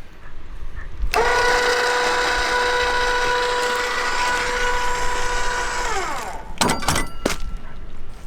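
Ezi-Jack caravan jack's electric motor running steadily as it lowers the caravan's front, its whine sliding down in pitch as it stops about six seconds in, followed by a few sharp clicks.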